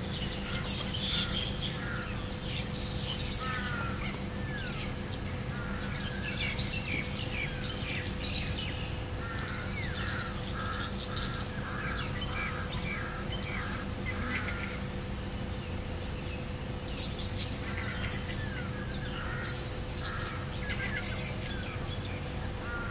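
Variable flying foxes (Pteropus hypomelanus) calling: clusters of short, harsh squawks and chattering screeches every few seconds, over a constant low hum.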